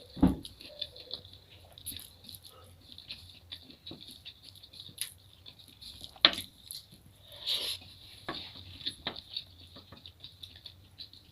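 Close-miked eating sounds: chewing with many small wet mouth clicks and smacks. There is a low thump just after the start, and a few sharper clicks partway through.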